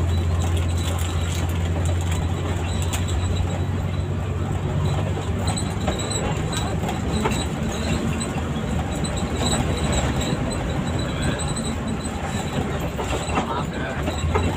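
Engine drone and road noise inside a moving intercity bus's cabin, with scattered light rattles. The low engine hum eases off about halfway through and swells again near the end.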